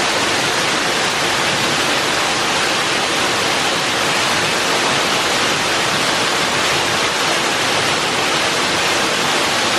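Waterfall, water falling with a steady, unbroken rush.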